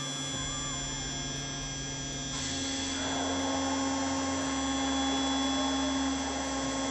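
CNC router spindle engraving a sheet of acrylic: a steady high whine over a low hum that shifts pitch in steps as the head moves. The cutting hiss gets louder about two and a half seconds in.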